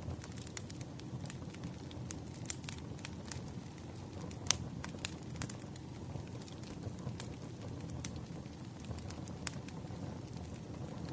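Campfire crackling: irregular sharp pops and snaps over a low, steady rumble of burning wood, with one louder pop about four and a half seconds in.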